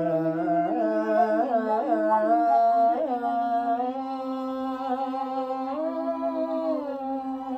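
Long-necked bowed string instrument and bamboo flute playing a slow melody in an Indian style. The notes slide and waver for the first few seconds, then settle into long held tones.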